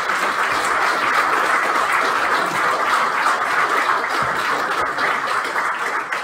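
Audience applauding, a dense steady clapping that tapers off near the end.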